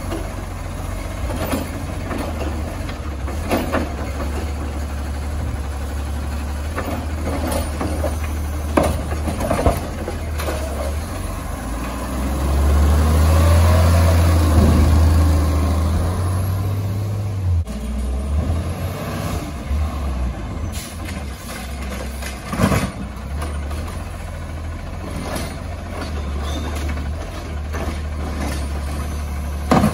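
Garbage truck engine running steadily, revved louder for several seconds in the middle, with sharp clanks and knocks at intervals.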